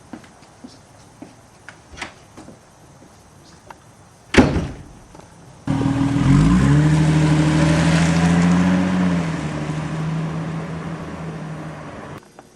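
Light footsteps, then a car door slams shut about four seconds in. A car engine then revs up, rising in pitch, and runs steadily as it slowly fades, as a car driving away does, until it cuts off abruptly near the end.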